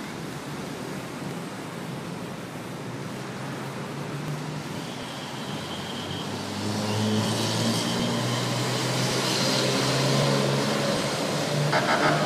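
Road traffic noise from a busy city street, with a vehicle engine running close by that grows louder a little past the middle.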